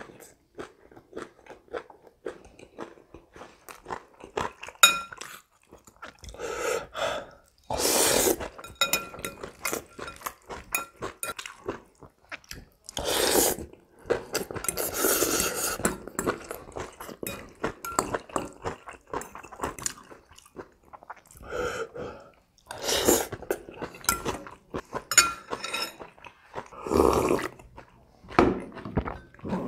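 Close-miked eating sounds: wet chewing and crunching, broken several times by long loud slurps of spicy instant-noodle soup, with occasional clinks of utensils in a glass bowl.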